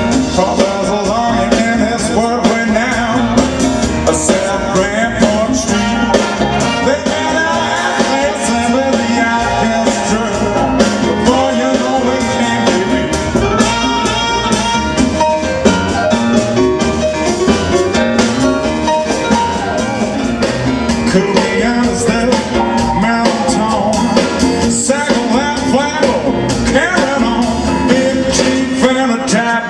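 Big band playing live: saxophones and brass over a steady drum beat, with piano.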